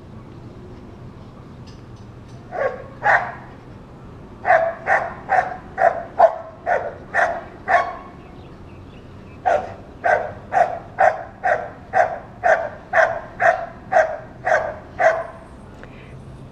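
A dog barking repeatedly at a steady pace of about two barks a second. Two barks come about two and a half seconds in, then a run of about eight, a short pause, and a longer run of about a dozen.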